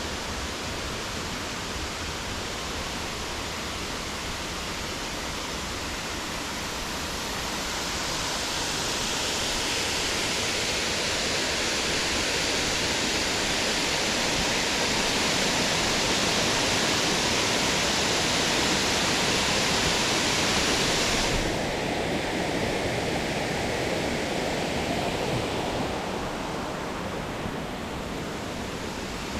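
Rushing water, a steady even rush that grows louder several seconds in and then drops off suddenly about three-quarters of the way through.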